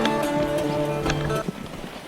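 Background music with held guitar chords that fade about one and a half seconds in, leaving a short lull.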